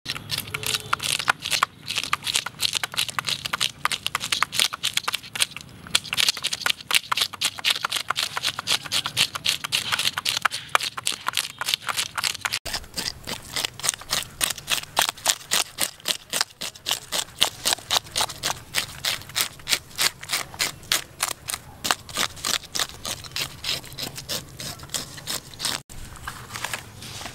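A toothed metal fish scaler scraped rapidly back and forth over a large fish's skin, its strokes ripping the scales off in a fast, rhythmic rasping of several strokes a second.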